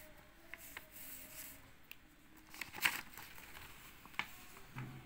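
Paper rustling and crinkling as the pasted card flaps and pages of a handmade project file are handled and a page is turned, with scattered crisp clicks and the loudest crackle about three seconds in.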